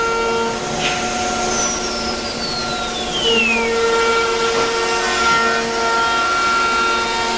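CNC router spindle running and cutting wood, a steady machine whine over a loud noise hiss. A high whine falls steadily in pitch between about one and a half and four seconds in.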